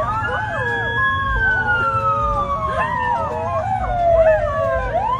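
A siren wailing, falling slowly in pitch and sweeping back up near the end, while two dogs howl along with it, their voices wavering and breaking against the siren's tone.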